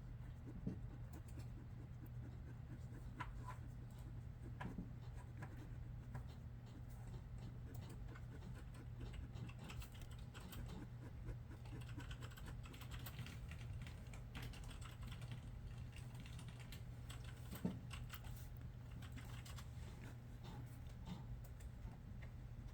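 Computer keyboard being typed on: irregular light key clicks, coming thickest for a few seconds in the middle, over a low steady hum.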